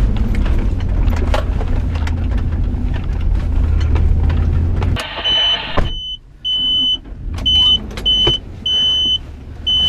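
An SUV's engine and drivetrain run steadily while it drives over a rough dirt track, with scattered knocks from the bumps. About halfway through the sound changes abruptly: the engine drone drops away and a high-pitched beep sounds over and over in uneven on-off pulses, some short and some longer.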